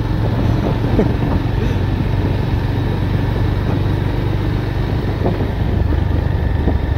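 Motorcycle riding at a steady speed: a steady low engine drone mixed with road and wind noise.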